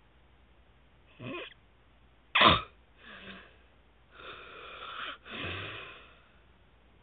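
A sleeping man snoring through his open mouth: a run of wheezy snores, with one short, loud snort about two and a half seconds in, and the last two snores drawn out to about a second each.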